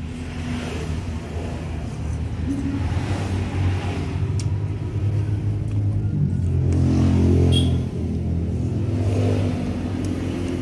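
A motor vehicle engine running with a steady low drone. It grows louder until about seven and a half seconds in, then drops off sharply and carries on more quietly.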